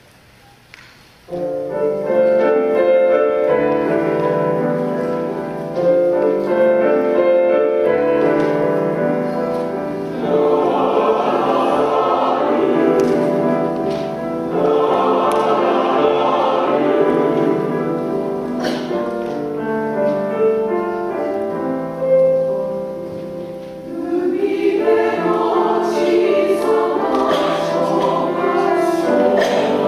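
Mixed choir singing with piano accompaniment, coming in suddenly about a second in after a brief hush and then swelling and easing in long sustained phrases.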